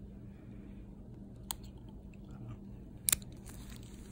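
Toenail nippers crunching through a thick fungal toenail: one sharp snip about one and a half seconds in, and a louder double crack a little after three seconds.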